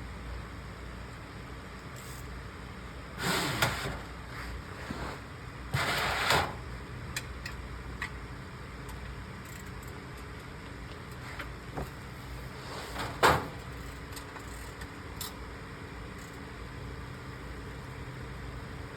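Work noises from an oil change under a car: two short scraping, rustling bursts and a sharp knock, with a few light ticks, over a steady hum.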